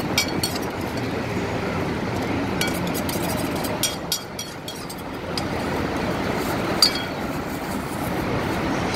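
A metal spoon clinking now and then against bowls and containers as green papaya salad is dished up, a few sharp clinks with a small cluster midway and one louder one near the end. Steady road traffic noise runs underneath.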